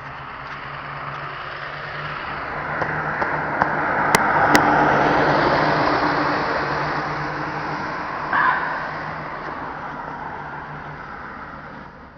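A motor vehicle driving past, its engine and tyre noise swelling to a peak about four to five seconds in and fading away over the next several seconds. Two sharp clicks come near the peak.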